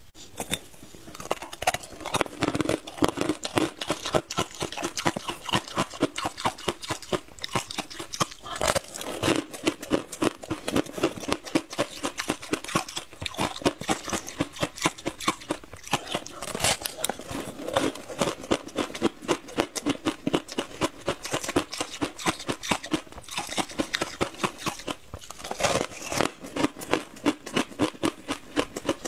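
A person biting and chewing a crisp, sugar-coated fried tartary buckwheat pastry close to the microphone: continuous dense crunching and crackling.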